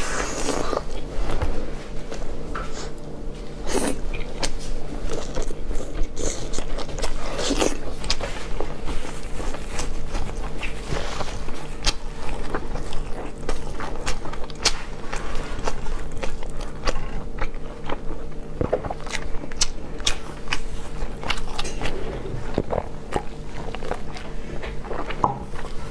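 A person chewing and biting food close to the microphone, with irregular crunchy clicks and smacking mouth sounds over a steady low hum.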